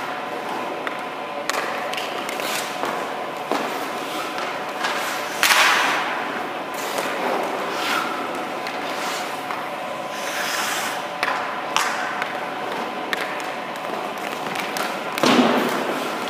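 Hockey goalie's skate blades scraping the ice and his pads thudding down as he moves around the crease, with two louder scrapes about five seconds in and near the end, over a steady hum.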